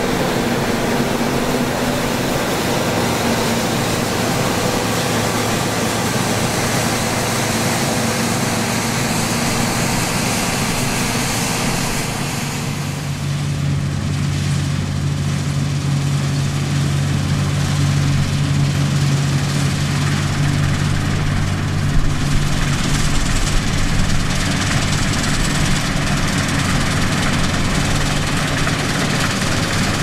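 Heavy harvest machinery running steadily: a diesel engine drone over a broad hiss, with a deeper, stronger engine hum taking over about halfway through.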